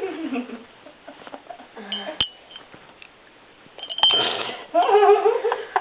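A person's voice making wordless sounds, a falling vocal glide at the start and more voice near the end, with two sharp, ringing clinks in between.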